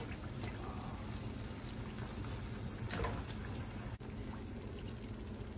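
Masala chekkalu (rice-flour crackers) sizzling steadily in hot oil as they deep-fry on their second side, with a brief soft click about three seconds in.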